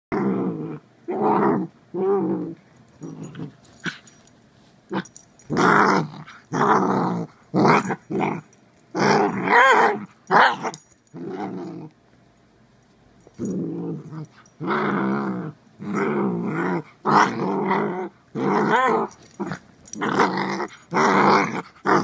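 Dachshund play-growling in a long series of short growls with wavering pitch, broken by a pause of a second or so about halfway through.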